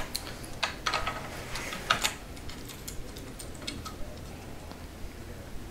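Light metal clicks and taps from a telescope's tube-ring clamp and its small bolts being handled and fitted onto the equatorial mount head. A quick cluster of clicks comes in the first two seconds, the loudest about two seconds in, then a few fainter ticks.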